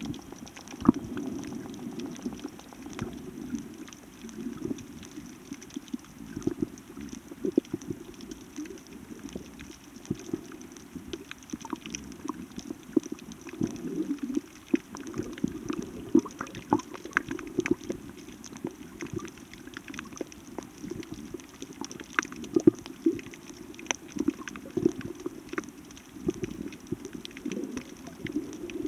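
Seawater churning and sloshing with a muffled, low rush, broken throughout by scattered sharp clicks and crackles.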